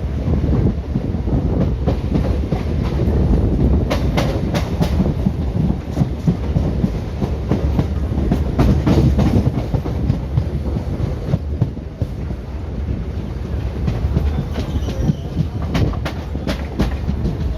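Indian Railways ICF train running along the track: a steady low rumble, with clusters of wheel clicks over the rail joints about four seconds in, again around the middle, and near the end.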